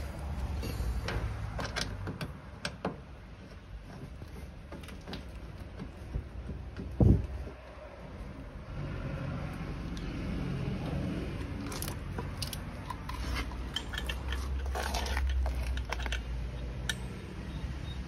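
Scattered metallic clicks and clinks of brass gauge-hose fittings being handled and screwed onto an air conditioner's service valve and a gas-bottle regulator, while hooking up for a refrigerant-system pressure test. One louder thump comes about seven seconds in.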